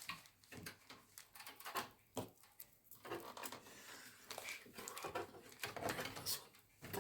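Computer parts being handled and fitted into a PC case: scattered, irregular light clicks and knocks.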